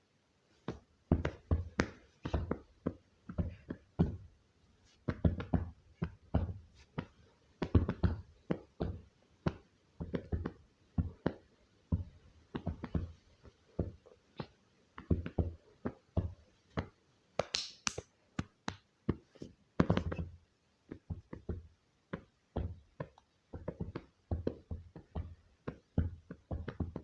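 Irregular light taps and knocks, a few a second, with a louder cluster about two-thirds of the way through.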